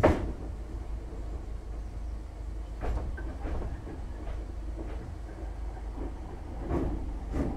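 Inside the motor coach of a Class 313 electric multiple unit: a steady low rumble with irregular clunks and knocks. The loudest knock comes right at the start, several more follow a few seconds in, and a pair comes near the end.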